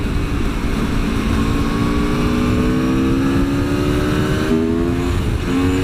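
Aprilia Tuono V4 1100's V4 engine under hard acceleration, its revs climbing steadily for about four and a half seconds. A quick upshift then drops the pitch and it pulls on. Rough wind buffeting on the helmet microphone runs underneath.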